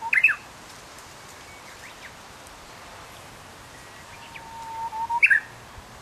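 Wild songbird singing twice: a short, quick, higher phrase right at the start, then from about four seconds in a long steady whistle that ends in a quick, higher-pitched flourish.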